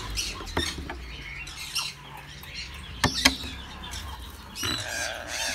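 Parrots giving short chirps and squawks, with scattered knocks and scratching. Several sharp knocks fall about three seconds in.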